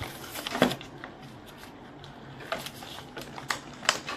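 Scissors cutting through a cardboard toy box, with a few separate sharp snips among the rustle of the box being handled.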